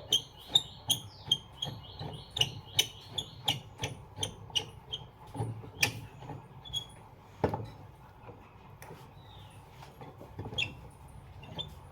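Sharp metallic clicks and taps while a ceiling fan is being dismantled, about three a second at first, then thinning out after about five seconds, each with a short ringing tone.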